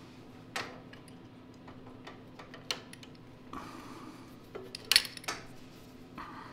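Sharp metallic clicks and clinks of pliers on a carburetor's fuel inlet as a fuel line is fitted back on, with short scraping rustles between. The loudest click comes about five seconds in.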